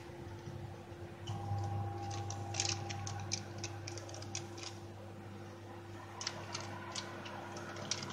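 Scattered light clicks and soft taps as ladyfinger sponge biscuits are set and pressed into a metal springform pan lined with baking paper, coming in two clusters. A steady low hum runs underneath.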